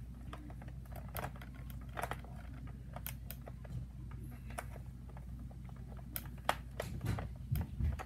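Scattered light plastic clicks and scrapes as a plastic attachment is screwed by hand onto a Nerf Accustrike Raptorstrike blaster, irregular and a few sharper ones about three and six seconds in, over a low steady hum.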